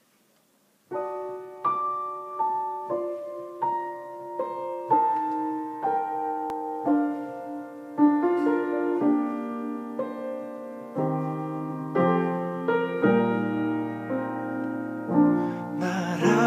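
Slow piano intro to a ballad: after about a second of silence, single notes and chords are struck about once a second in a melody that steps downward, with lower bass notes joining in about two-thirds of the way through. A man's voice starts singing right at the end.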